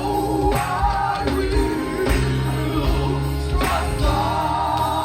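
Live gospel music: a band with drums, bass and keys playing under wavering sung or held vocal lines.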